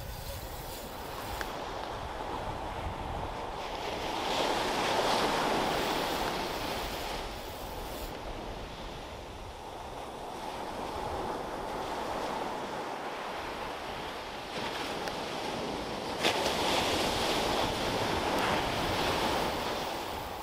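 Ocean surf breaking and washing up the beach, a steady rush of waves that swells loudest about four seconds in and again near the end.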